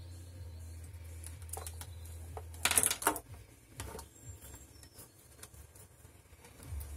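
Hands handling multimeter probe leads and power cables on a desk: plastic clicks and a short loud clatter about three seconds in, with scattered lighter clicks. A steady low hum stops at the moment of the clatter.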